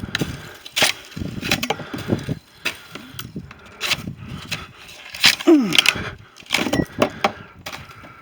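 Broom striking a thick sheet of roof-edge ice and breaking it off: a string of sharp knocks and cracks, about ten in eight seconds, with the loudest ones a little past halfway.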